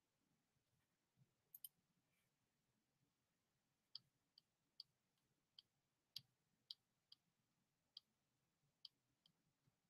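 Near silence: room tone with about a dozen faint, sharp clicks at irregular intervals.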